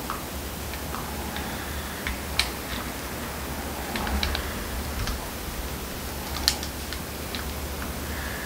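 Room noise with a low steady hum and a few scattered light clicks and taps, the sharpest about two and a half and six and a half seconds in.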